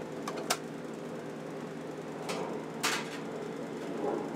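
Steady mechanical hum of a food truck's kitchen equipment, with a few sharp clicks and knocks of utensils and containers, about half a second in and again around two to three seconds in.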